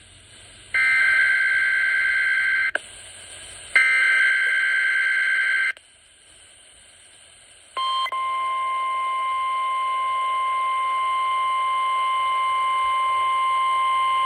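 NOAA Weather Radio Required Weekly Test: two SAME digital header bursts, each a harsh two-pitch warbling data screech about two seconds long with a short pause between. About eight seconds in, the steady 1050 Hz Weather Alert Tone starts and holds.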